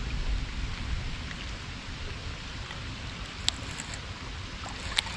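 Steady outdoor water and wind noise with a low rumble, and two sharp clicks about a second and a half apart.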